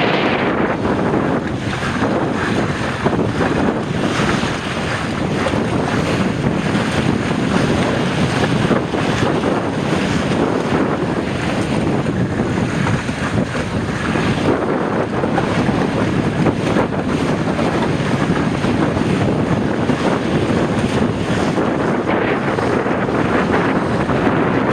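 Strong wind buffeting the microphone over the rush and splash of water along the hull of a Fireball sailing dinghy under way, swelling and easing with the gusts.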